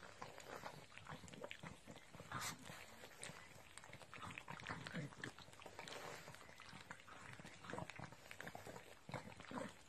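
Pugs licking at each other: faint, irregular wet smacking and clicking sounds.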